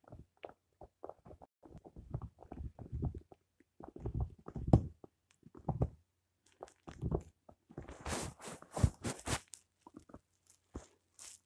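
A small dog chomping and gnawing a chew bone held between its paws: irregular crunches and clicks of teeth on the bone, with a sharper, denser run of crunching about eight seconds in.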